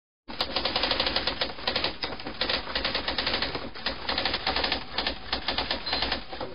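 Typewriter keys striking in a fast, uneven run of about six or seven clacks a second, starting a moment in.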